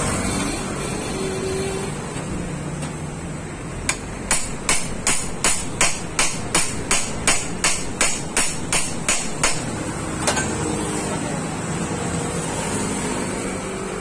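A hammer striking metal in a quick run of about eighteen blows, roughly three a second, then a single blow a little later, while the steering-head bearings of a Honda TMX125 Alpha motorcycle are being replaced.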